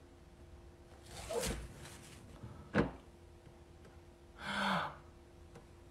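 Quiet handling of a glass bottle on a table: a soft rustle, one sharp knock a little before the middle, and a short breath or gasp later on.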